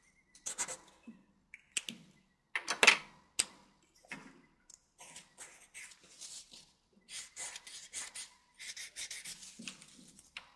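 Felt-tip marker drawing short strokes on folded paper: a string of scratchy squeaks and rubs, the loudest about three seconds in, followed by a sharp click.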